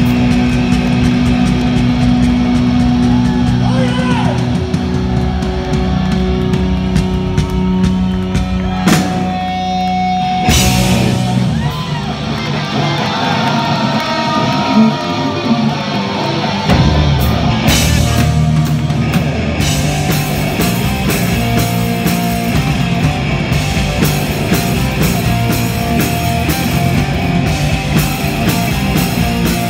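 Live hard rock band playing loud through a concert PA, with electric guitars, bass and drums. Midway a lead guitar plays notes that slide up and down in pitch while the low end thins out for a few seconds, then the full band comes back in.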